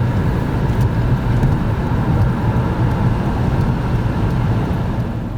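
Car driving along the road: steady engine and road rumble.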